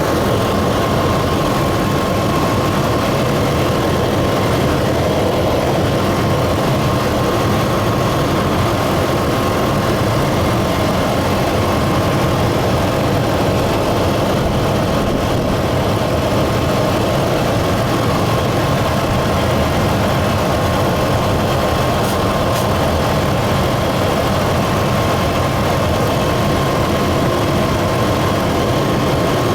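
Car engine idling steadily and a little rough, with a thin steady whine over it. The owner suspects a vacuum leak at the throttle body gasket, with the engine sucking in air there.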